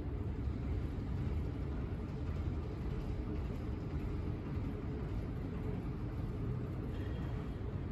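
Steady low rumble of a large, near-empty airport terminal's background noise, with no distinct events.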